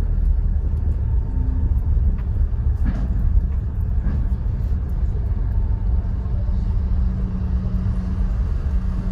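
Low, steady rumble inside a car's cabin as the car creeps forward onto a car ferry's deck: the car's engine and tyres running at walking pace.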